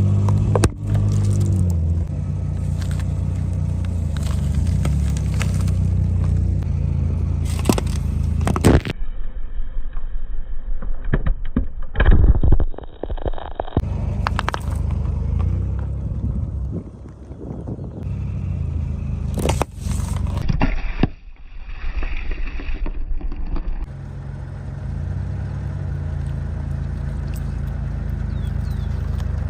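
A car's engine running at low speed while its tyres roll over and crush objects, with repeated crunching, cracking and scraping. The sound changes abruptly several times as short clips are cut together.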